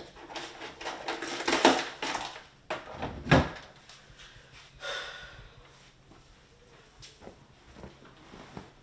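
Household movement and handling noises: rustling and a few knocks, the loudest a sharp thump about three and a half seconds in, then only faint scattered ticks.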